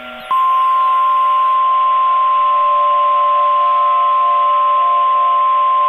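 Emergency alert tone of the kind used on weather-radio tornado warnings: one long, steady high beep that begins just after the start and holds on, over a steady hiss.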